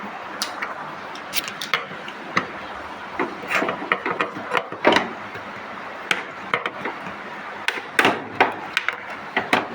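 Irregular knocks, clicks and clanks of hand tools and washing-machine panels and parts being handled during disassembly.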